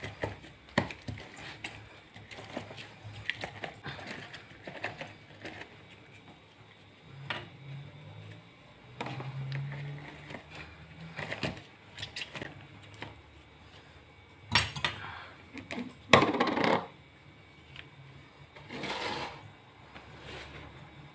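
Lemon halves twisted and pressed down on a plastic citrus reamer: a run of small clicks, knocks and scrapes of plastic and rind, with a few louder scraping bursts in the last third.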